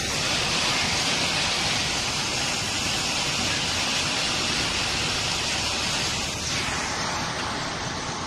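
Canal water rushing steadily through a brick irrigation outlet (moga) into the field channel, an even hiss of flowing water that eases slightly about six and a half seconds in.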